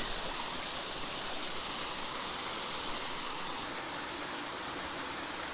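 Small creek waterfall spilling over a log into a pool: a steady rush of falling water.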